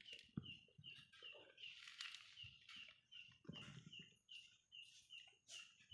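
Faint soft rustling as a mother cat licks and nuzzles her newborn kitten on bedding in a cardboard box during a birth. Behind it, a steady high chirp repeats about two to three times a second.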